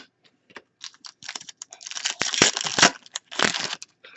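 Trading cards and their pack being handled: scattered light clicks, then two stretches of dense rustling and sliding around the middle and just before the end.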